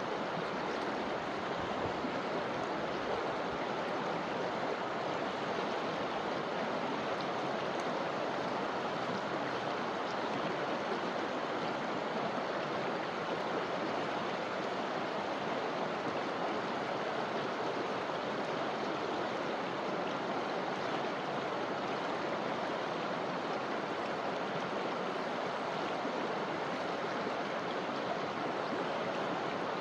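Forest river flowing over rocks: a steady, unbroken rushing of water.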